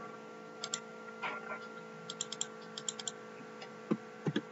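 Scattered clicks from a computer keyboard and mouse, in small quick clusters, with a few heavier keystrokes near the end, over a faint steady electrical hum.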